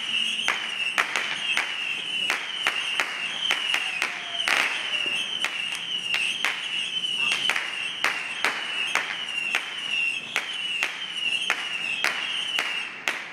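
Fireworks going off in a rapid, irregular series of sharp pops and cracks, about two a second, over a steady high-pitched chirring.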